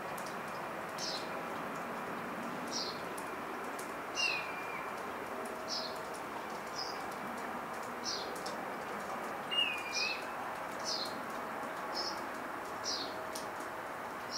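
A small bird calling a short, high, downward-sliding chirp roughly once a second, with two lower hooked notes mixed in, over a steady background hiss.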